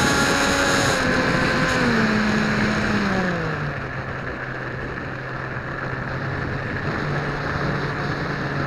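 Electric motor and propeller of a Dynam Hawk Sky RC airplane in flight, whining over a steady rushing noise. Its pitch drops from about a second in to about three and a half seconds in as the throttle comes back, then it runs steady at a lower speed, rising a little near the end.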